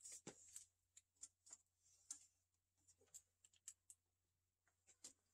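Near silence broken by faint, irregular clicks and light taps of small things being handled, a dozen or so scattered through the stretch.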